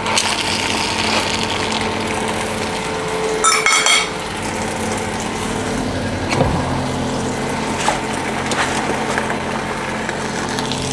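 Roast chicken's hot roasting tin sizzling steadily, with utensils clinking on the metal tin and a brief metallic scrape and ring about three and a half seconds in as the chicken is turned over.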